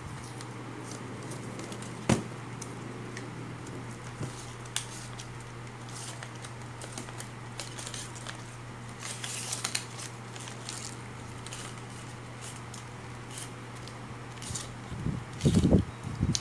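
Small handling noises: masking tape being peeled and worked in the hands, giving scattered crackles, rustles and small clicks, with a sharper click about two seconds in and more handling noise near the end, over a steady low hum.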